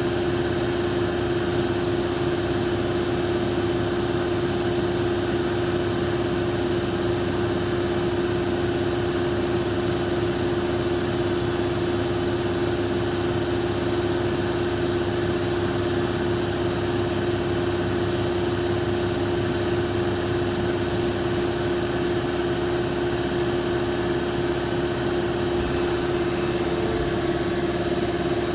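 Lathe running, a steady machine hum with one strong unchanging tone and no change in speed.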